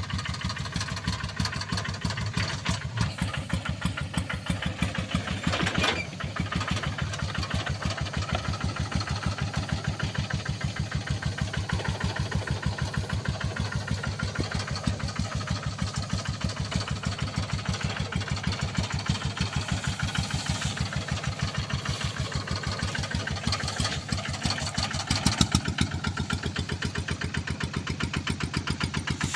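Engine of a Quick QH-11 rice combine harvester running steadily, with a rapid, even pulsing beat.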